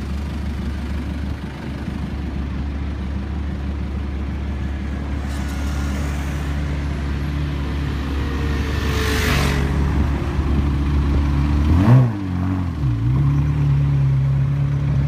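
Ferrari 360 Modena's V8 running at low revs as the car rolls slowly past, with one short throttle blip near the end, where the note jumps up and drops back.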